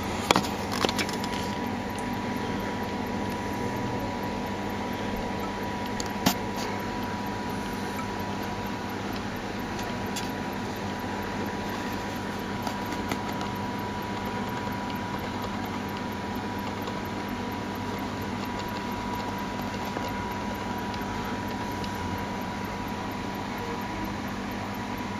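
Steady background hum and hiss with a faint, even high tone running through it. A few sharp clicks stand out, a cluster in the first second and the loudest about six seconds in.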